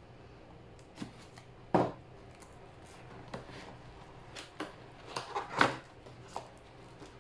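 A box being opened and its packaging handled by hand: scattered short rustles, scrapes and taps. The loudest come about two seconds in and a little past the middle.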